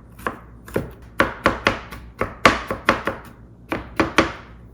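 Kitchen knife chopping garlic on a cutting board: a quick, uneven run of a dozen or so sharp chops.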